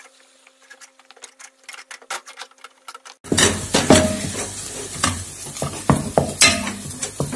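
Wooden spoon stirring choux pastry dough in a metal pot on the stove, as flour is worked into hot melted butter and water. Faint clicks at first, then about three seconds in louder scraping and knocks of the spoon against the pot over a sizzle of the dough cooking in the pan.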